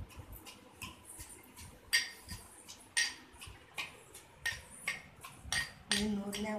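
Metal spoon striking and scraping inside a small stainless steel tumbler: a run of sharp, ringing metallic clinks, about one or two a second.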